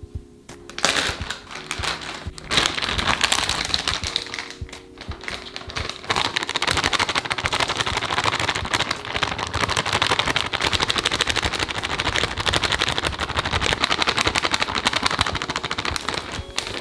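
Plastic bag of bread flour crinkling as flour is poured from it into a glass bowl: a few separate rustles in the first few seconds, then a dense, even crackle that stops just before the end. Soft background music is heard briefly near the start and about four seconds in.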